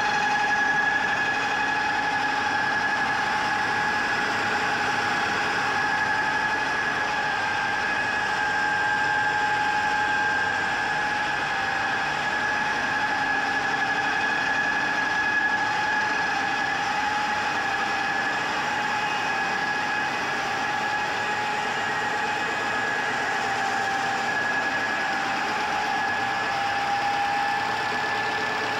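GIDUE MASTER Combat flexographic label press running: a steady mechanical hum with a constant high whine that holds at one pitch throughout.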